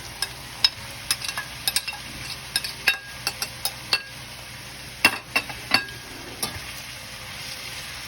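Chopped beetroot and carrots sizzling in hot oil in a pan, with a utensil stirring and repeatedly clicking and scraping against the pan.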